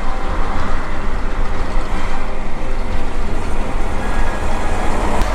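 Converted school bus engine running as the bus drives, a steady low drone.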